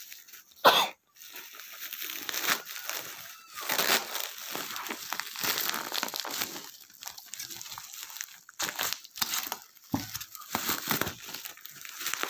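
Bubble wrap and plastic packaging crinkling and rustling irregularly as hands pull and tear it open, with one loud sharp crackle less than a second in.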